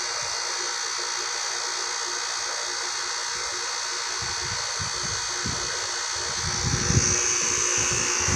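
Carrier 38CKB air-conditioner condensing unit running steadily in cool mode, a constant fan-and-compressor noise with a faint high tone. From about four seconds in, irregular low rumbling joins it and grows near the end.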